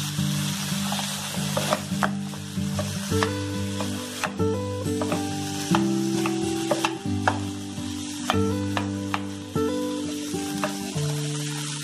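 Prawns sizzling in hot oil in a ceramic nonstick frying pan as they are stirred, with scattered clicks and scrapes of a wooden spoon against the pan.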